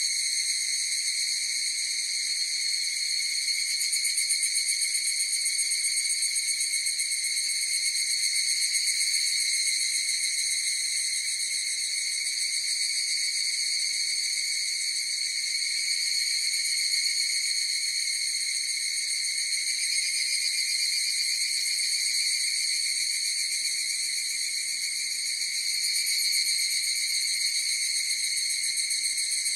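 A chorus of higurashi (evening cicadas) singing: a steady, high-pitched drone with a fast pulsing texture that holds without a break.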